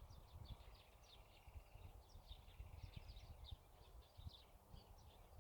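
Faint chirping of several small birds, many short calls overlapping, over a low, uneven rumble.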